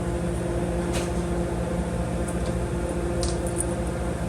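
Diesel commuter train standing at the station platform, running with a steady idling hum that holds several fixed tones. Faint clicks come about a second in and again past three seconds.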